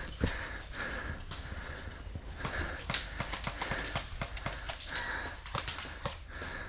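Irregular sharp clicks and knocks, several a second, mixed with short bursts of hiss.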